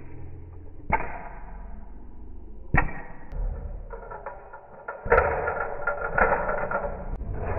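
Slowed-down, deep-pitched sound of toy cars played with on a foam play mat: two sharp knocks, each trailing off in a long whoosh, then from about five seconds in a louder, rough rattling noise.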